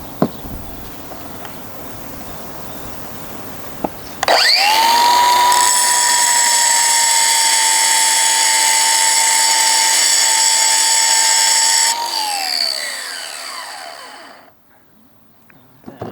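Electric grinder switched on and spinning up fast, running at a steady high whine for about eight seconds, then switched off and winding down in pitch.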